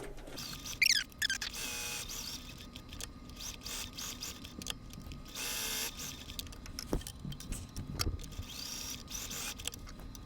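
Electric sewing machine running, top-stitching along a fabric edge, with a steady motor hum, fast needle ticking and a few scratchy sounds.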